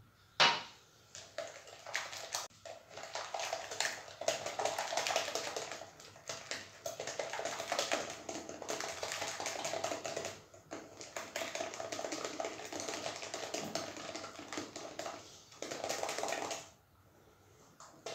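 Hand whisk beating an egg, sugar, oil and semolina batter in a glass bowl: fast, continuous clicking and tapping of the whisk against the glass. It pauses briefly about ten seconds in and stops near the end.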